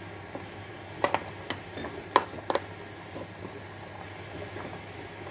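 A fork stirring crepe batter in a glass bowl, clinking sharply against the glass several times in the first few seconds, then softer scraping and ticking as the stirring goes on.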